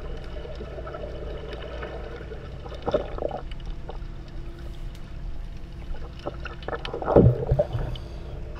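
A snorkeler's slow breathing through his snorkel, heard from an underwater camera over a steady low water rumble, with two louder breaths about three and seven seconds in. The breaths are paced to bring his heart rate down after diving.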